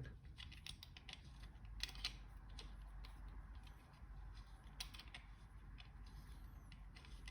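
Faint, scattered clicks and light taps of small spray-gun parts being handled and fitted together by hand, over a low steady hum.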